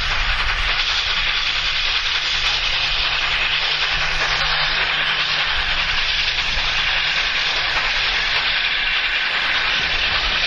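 LNER A4 Pacific steam locomotive 60019 Bittern with its train, giving a steady, even hiss of steam over a low hum.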